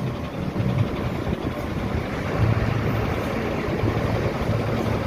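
Bus engine running steadily under way with a low hum, mixed with road and wind noise through an open window.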